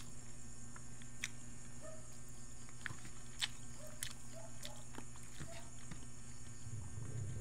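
Close chewing and mouth clicks of a person eating, scattered irregularly over a steady low hum.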